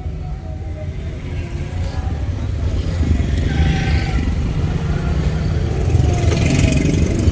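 Motorcycle riding through town traffic: a continuous engine and road rumble that grows louder in the second half.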